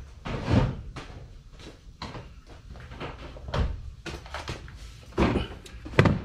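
Several dull knocks and clunks of objects being handled and set down on a workbench, with a sharper click near the end.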